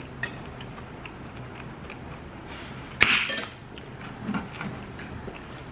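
An aluminium can of lemon sparkling water cracked open: a sharp pull-tab pop about three seconds in, followed by a short fizzing hiss of escaping carbonation.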